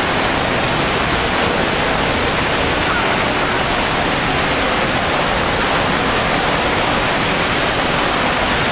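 Steady rushing of falling water from an indoor waterfall, even and unbroken.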